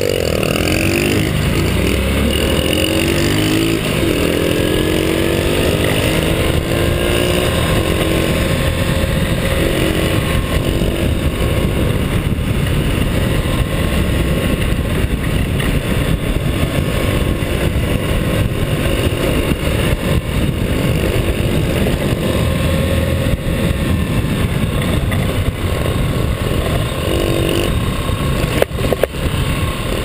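Small motor scooter engines pulling away from a stop, rising in pitch over the first few seconds, then running steadily at road speed. Heavy wind noise on the riding camera's microphone runs under them throughout.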